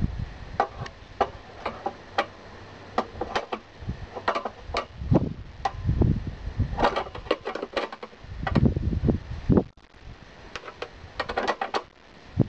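Irregular sharp clicks and metal taps from a Lawn-Boy mower's bent-wire carburetor guard being handled and fitted back into place, with a few dull low bumps in between.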